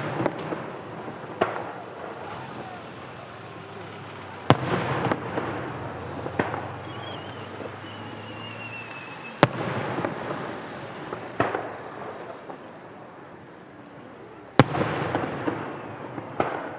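Aerial firework shells bursting: three loud bangs about five seconds apart, each followed by crackling and a fading rumble, with smaller pops in between.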